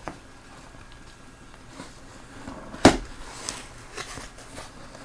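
Cardboard box being handled and opened, with one sharp knock a little under three seconds in and a few faint ticks and rustles after it.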